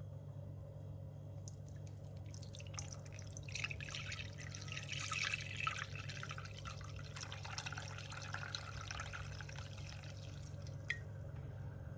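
Liquid being poured and trickling into a container, loudest for a few seconds in the middle and tapering off, with a small click near the end, over a steady low hum.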